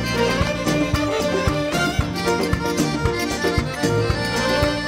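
A band playing an instrumental passage of a Sudanese song: a held melody line with rich overtones over a regular drum beat.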